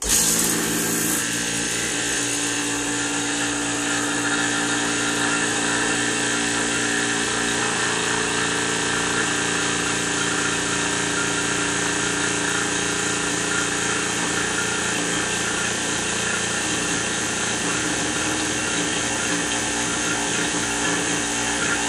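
Yellow Jacket refrigeration vacuum pump switching on and running steadily, pulling a vacuum on an old pressure canner to seal the mason jars inside. It comes on with a brief louder surge in the first second, then runs at an even level and pitch.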